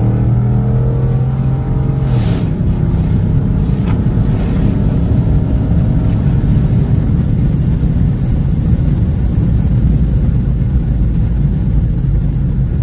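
Ford F-150's 5.0-litre Coyote V8 heard from inside the cab under hard acceleration, with a brief sharp transient about two seconds in. Engine and road noise run on as the truck slows near the end.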